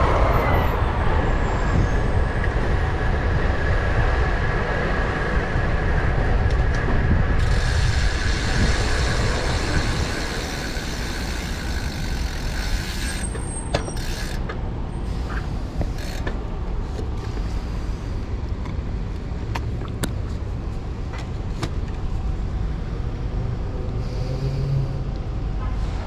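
Road traffic heard from a moving bicycle, with wind noise on the microphone. A steady high hiss runs from about 7 to 13 seconds in, and a few sharp ticks follow.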